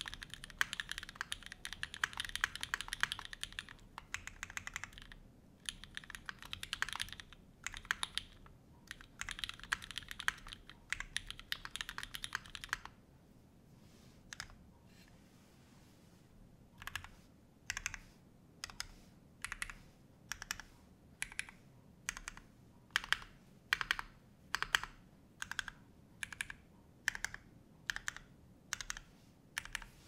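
Typing on a custom OC-62 mechanical keyboard with an aluminium plate and lubed, filmed Cherry MX Black linear switches under GMK keycaps. Fast continuous typing with short breaks runs for about the first thirteen seconds. After a pause of a few seconds, single keys are pressed one at a time, about two a second.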